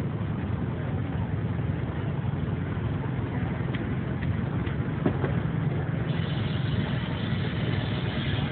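Steam traction engine running with a steady low rumble. A high hiss of escaping steam joins about six seconds in.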